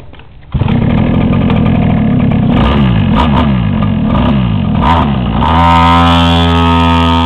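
Two-stroke mini ATV engine, close by, coming in loud about half a second in and revved with its pitch swinging up and down several times, then held at a steady high pitch from about five and a half seconds in.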